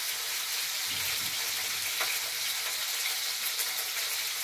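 Chicken pieces sizzling steadily in hot oil in a skillet as they brown for brown stew chicken.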